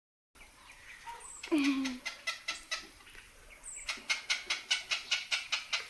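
Heron giving a rapid series of dry clicks, about six a second, in a short run about 1.5 s in and a longer run from about 4 s to near the end, which the uploader takes for a mating call.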